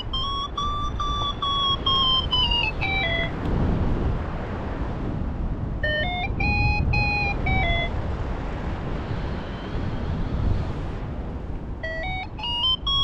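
Paraglider's variometer beeping in a stepped tone whose pitch swells up and falls back three times, at the start, about six seconds in and near the end, its pitch tracking the climb rate in ridge lift. Under it runs a steady rush of wind on the microphone.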